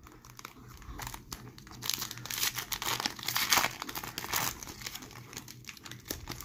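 Foil wrapper of a Tim Hortons Upper Deck hockey card pack crinkling and tearing as it is ripped open by hand, loudest in the middle and easing off near the end.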